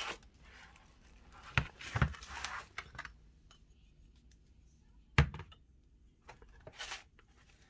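Ceramic teapot and cups being handled and set down on a stone counter: a few scattered knocks and light clinks with a little rustling in between, the loudest knock about five seconds in.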